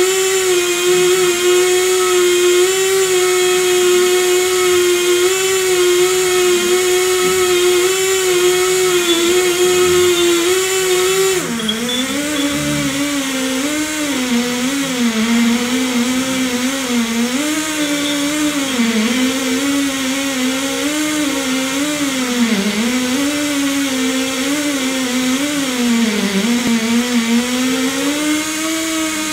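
Air motor of a Tri Tool 208B pipe beveling machine running a cut on 6-inch stainless schedule 80 pipe, a loud steady whine. About a third of the way through, its pitch drops suddenly and then wavers up and down as the load on the tool changes.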